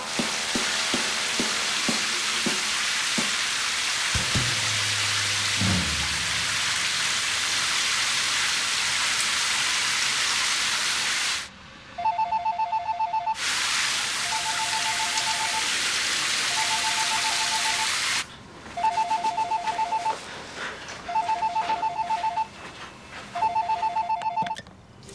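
Cordless phone ringing with an electronic trilling two-tone ring, six rings about a second long each, starting about halfway through. A loud steady hiss fills the first half and breaks off when the ringing starts.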